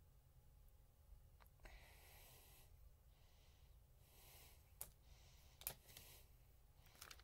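Near silence, with three faint breaths from a person close to the microphone and a few short sharp clicks.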